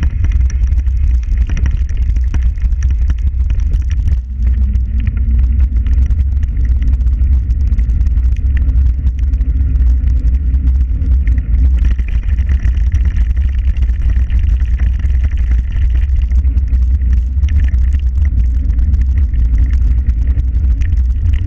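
Loud, steady low rumble of wind buffeting the microphone of a camera moving fast along a paved path, with many small rattles and knocks over it. The rumble dips briefly about four seconds in.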